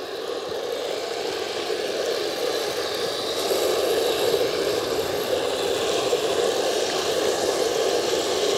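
Remote-controlled model tank running across loose sand, a steady motor-and-track hum that grows louder over the first few seconds as it comes closer, then holds.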